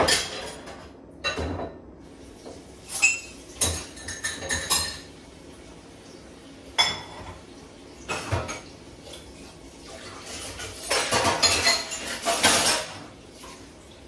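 Dishes, glasses and cutlery clinking and clattering as they are handled and loaded into a dishwasher's wire racks, in irregular knocks with a longer run of clatter near the end.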